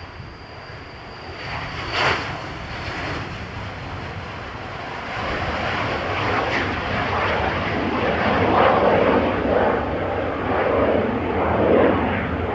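Cessna Citation CJ4 business jet's twin Williams FJ44-4A turbofans at takeoff power: a high whine that fades over the first few seconds, then a rough roar that grows louder as the jet lifts off and climbs away. A short burst of noise stands out about two seconds in.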